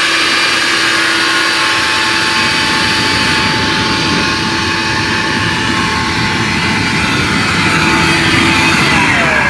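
Leaf blower running steadily at full power, blowing air into a bonfire: a loud rush of air with a steady whine. Near the end its pitch starts to drop as it slows.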